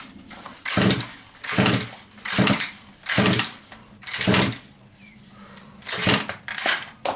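Recoil pull-starter of a 1/5-scale RC car's small petrol engine being yanked over and over, about seven quick pulls with a short pause in the middle; the engine cranks but does not catch.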